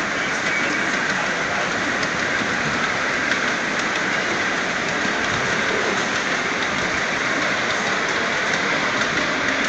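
Wheels of a ride-on 5-inch gauge miniature train rolling along the track: a steady rolling noise with a few faint clicks.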